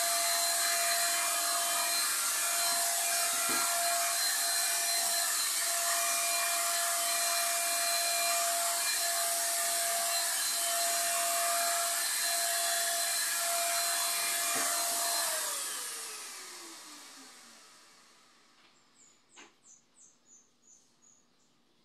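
Electric paint sprayer's motor running steadily with a hissing whine, then switched off about fifteen seconds in, its pitch falling as it winds down. Near the end, a quick run of faint high chirps.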